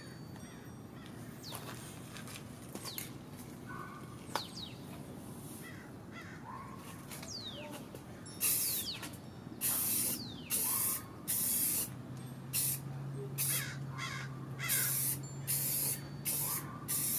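Aerosol can of clear coat spraying in about a dozen short hissing bursts, starting about halfway through.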